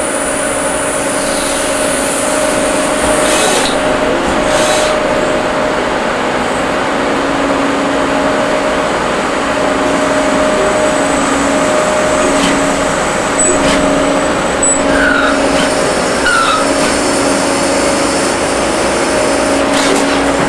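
Citizen A32VII Swiss-type CNC lathe machining a brass part under coolant. The steady machine noise carries a hum, and a lower tone comes and goes in short stretches through the second half, with a few light clicks of tool and chip contact.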